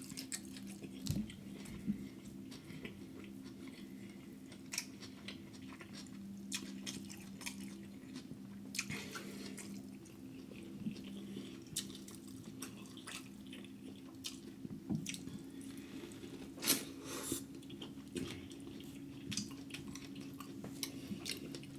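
A person chewing seafood boil close to the microphone, with scattered wet smacks and clicks. A steady low hum runs underneath.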